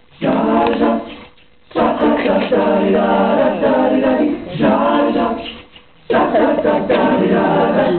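Men's a cappella group singing in harmony, several voices together, the song beginning right at the start. Two short breaks between phrases, about a second in and again near six seconds in.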